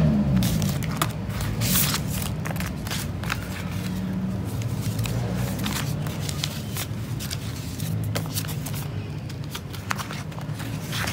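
Paper banknotes rustling and crinkling in quick, irregular bursts as they are handled and slid into a plastic binder pouch, over a steady low hum.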